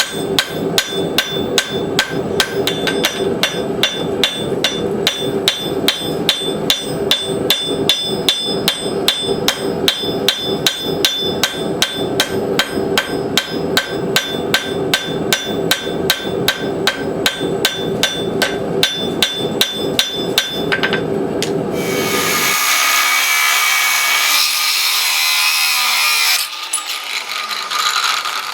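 Hand hammer striking hot steel on an anvil in a steady rhythm, about two to three blows a second, each blow ringing: forging a tomahawk head from a horse hoof rasp. The hammering stops a little over 20 seconds in and gives way to several seconds of steady harsh grinding-like noise.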